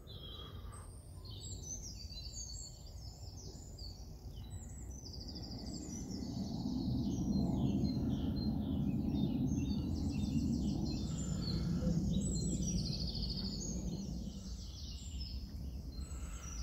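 Several small birds singing and chirping over a low outdoor rumble that swells in the middle and eases toward the end.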